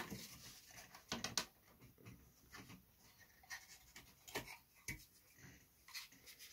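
Faint, scattered light clicks and taps of small balsa wood pieces being handled and pressed into place, with a soft rustle now and then.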